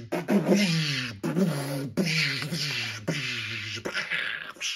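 A man making starfighter sound effects with his voice: a run of hissing whooshes, each sliding down in pitch, about one a second.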